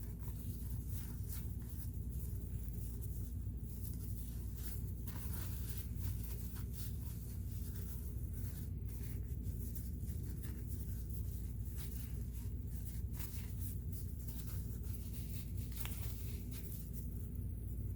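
Scattered light clicks and scrapes of hands handling a sewing machine's metal cover and parts, over a steady low hum.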